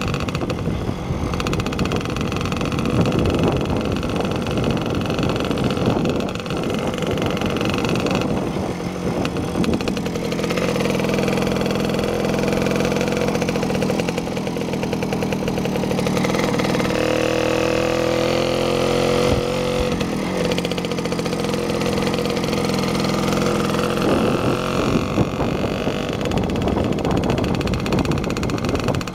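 Engine of a moving vehicle running steadily, its pitch drifting up and down with speed.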